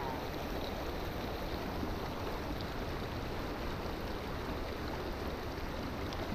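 Shallow river running fast over rocks: a steady rush of water over a riffle, heard close to the water surface.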